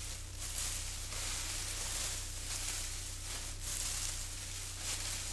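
A hand rummaging through loose dry hay: a continuous crackly rustle that swells and fades with each scoop.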